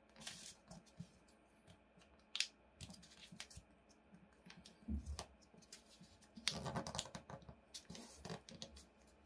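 Origami paper crackling and rustling as it is folded and pressed into creases by hand: irregular sharp crinkles, with a denser run of handling about two-thirds of the way through and a low knock about halfway.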